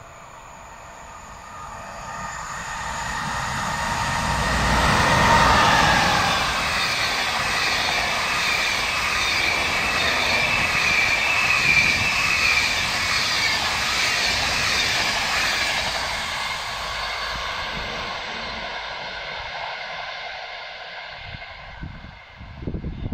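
An EU160 (Newag Griffin) electric locomotive hauling an Intercity passenger train passes at speed. The sound rises as the train approaches and is loudest as the locomotive goes by about five seconds in, with a falling whine. The steady rolling rush of the carriages on the rails follows, then fades as the train draws away.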